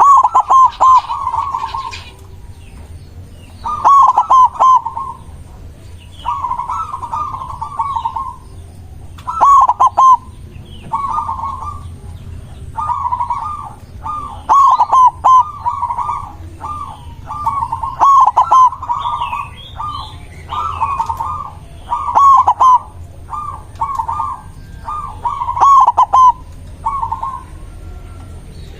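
White zebra dove (perkutut) singing: a run of fast, rolling coo phrases, each about a second long, repeated every second or two with short pauses between.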